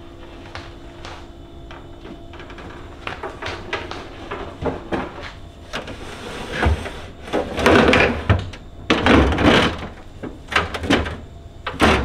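Plastic fridge drawers and shelves being handled and pulled out: a run of knocks and clicks, with two louder, longer clatters about two-thirds of the way through.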